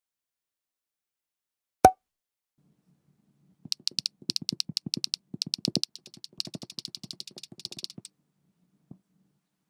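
A single sharp pop from a messaging app's new-message alert about two seconds in. Then a run of rapid keyboard typing clicks for about four seconds, and one faint tap near the end.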